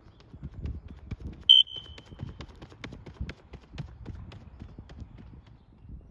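A sprinter's footfalls striking the track in a quick, even rhythm, with one loud, short high-pitched cue tone about a second and a half in, its tail fading over the next second: the sound signal given as the runner passes the last 20 m to cue his switch to relaxed top speed.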